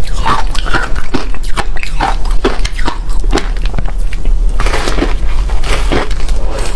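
Close-up crunching of freezer frost ice being bitten and chewed, about two crisp crunches a second, over a steady low hum.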